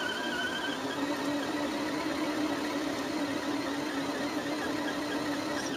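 Electric motor and drivetrain of an Axial SCX10 Honcho RC crawler whining under load as it climbs through sand. The pitch is higher at first, drops about a second in to a steady low whine, and falls away near the end as the throttle eases off.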